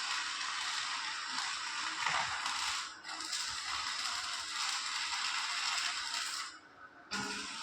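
Electric arc welding: the arc crackles and hisses steadily as a bead is laid. It breaks off briefly about three seconds in, and again for about half a second near the end, before the arc is struck again.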